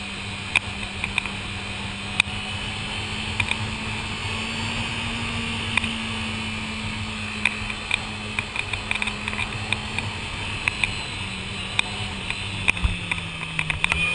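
Sport motorcycle's engine running steadily under way, heard from a camera mounted on the bike, with frequent sharp ticks and rattles over it. The engine note drops a little near the end.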